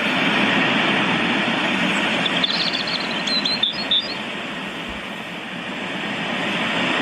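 A rushing, noise-like recording played back through Philips SPA1260 2.0 multimedia speakers, swelling and easing, with a few short high chirps in the middle.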